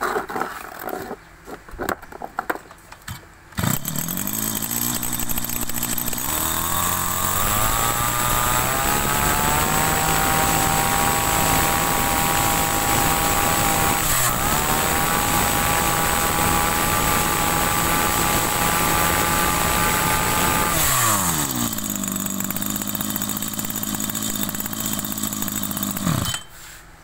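Two-stroke engine of a Maruyama 320 brush cutter with a 38 mm bore. It starts about three and a half seconds in and idles briefly, then is revved up to a high, steady full throttle with a brief dip in the middle. It drops back to idle and is shut off shortly before the end.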